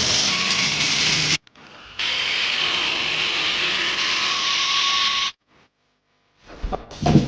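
Youwang V400 vacuum cleaner running with a steady high hiss, dropping to a faint level briefly about 1.5 s in, then running again and cutting off abruptly about 5 s in. A few short knocks follow near the end.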